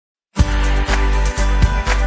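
Background music starting about a third of a second in, with a heavy bass line and a steady beat.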